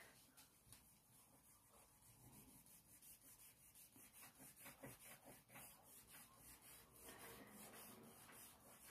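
Faint rubbing of a cloth over a cured epoxy resin surface in quick back-and-forth strokes, about three a second, working at a cloudy amine blush on the resin.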